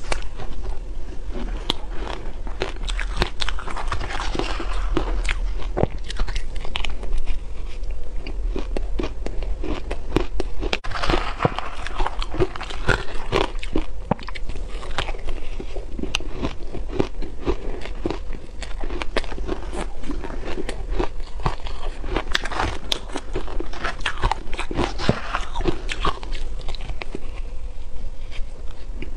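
Close-miked crunching and chewing of shaved ice: many crisp crunches in quick succession as mouthfuls of ice are bitten and chewed.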